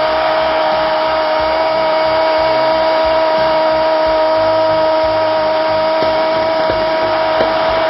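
A sports commentator holding one long, steady shouted note over the noise of a stadium crowd: the drawn-out call announcing a championship win.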